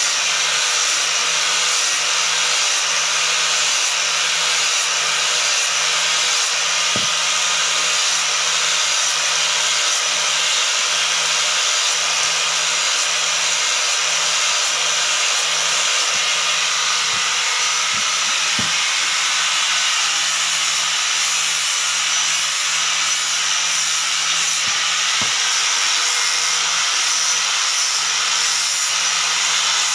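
Electric angle grinder running without a break as its disc grinds away the curved edge of a hardwood chopping board: a steady high whine mixed with the rasp of wood being cut.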